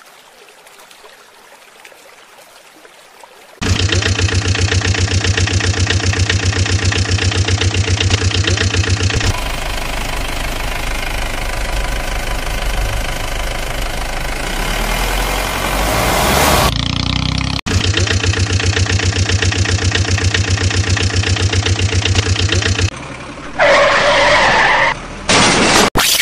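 Truck engine sound, a steady rhythmic chugging that starts a few seconds in, goes over into a rising rev in the middle, then returns to the chugging. Before it there is only faint outdoor background noise.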